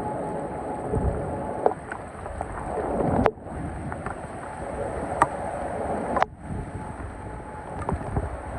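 Strong thunderstorm wind gusting and buffeting the microphone, with heavy rain and scattered sharp ticks of drops or debris hitting. The rush swells and drops off suddenly twice.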